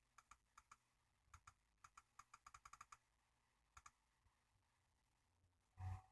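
Faint clicking at a computer: single clicks and pairs, with a quick run of about seven clicks a little before the middle. A short, louder low thud near the end.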